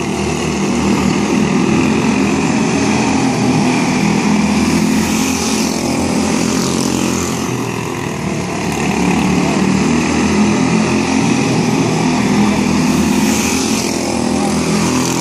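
Several quarter midget race cars' small single-cylinder Briggs & Stratton Animal engines running at racing speed together, a steady buzzing drone that swells and eases as the cars circle the dirt oval.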